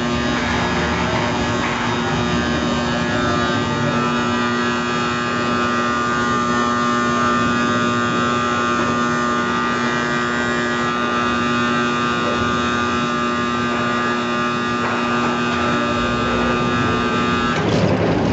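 Truss gantry press running along the assembly table to press gusset plates into the truss joints: a steady machine hum with a strong low tone. Near the end the hum stops and a rattling clatter takes over.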